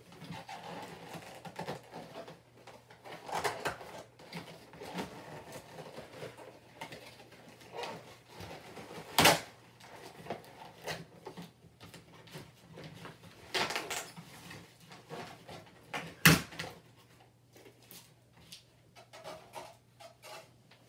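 Cardboard box and packaging inserts handled while a plastic Nerf blaster is taken out. Irregular scraping and rustling, with two sharp knocks about nine and sixteen seconds in.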